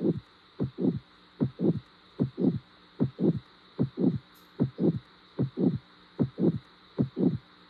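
Heart sounds: a steady heartbeat of paired lub-dub beats, about 75 pairs a minute, with a faint steady hum underneath.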